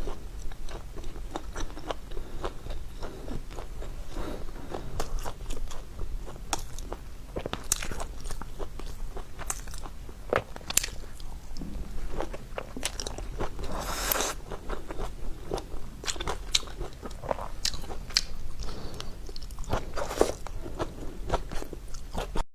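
A person biting and chewing food close to the microphone, with irregular crunching clicks.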